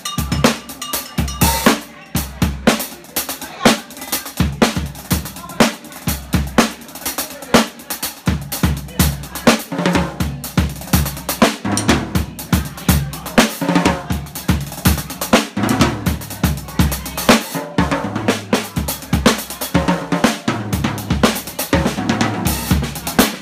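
Drum kit played live with sticks: a quick, steady stream of snare and bass drum hits with cymbals.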